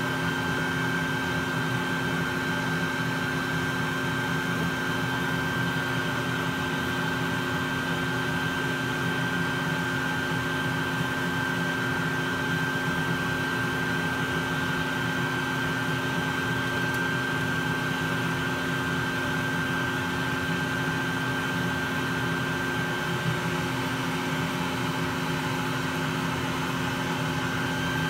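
Bee vacuum running steadily, air rushing through its corrugated hose as it sucks honey bees off the comb, with a steady high whine from the motor.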